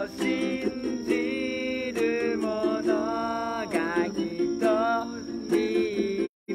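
A Japanese worship song sung to a strummed ukulele. The sound drops out briefly near the end.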